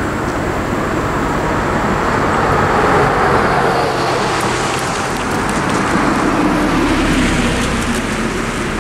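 Road traffic passing over the crossing: car tyre and engine noise that swells about three seconds in and again a few seconds later as vehicles go by.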